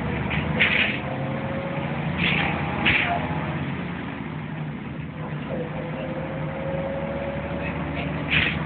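Cabin noise inside an Ikarus 280 city bus, its diesel engine running with a steady low hum and a faint whine. A few short, sharp noises sound over it, about half a second in, twice around two to three seconds, and again near the end.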